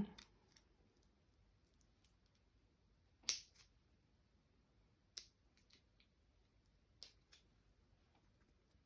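Plastic shrink-wrap on a deck of oracle cards being picked at and peeled off: a few short crinkles and clicks in pairs about two seconds apart, with near silence between.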